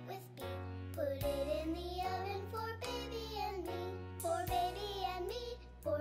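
Children's song playing: a child's singing voice over a bass line.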